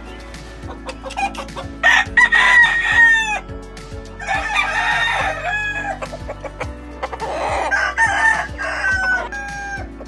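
Roosters crowing three times, each crow ending on a falling note, with clucking between the crows.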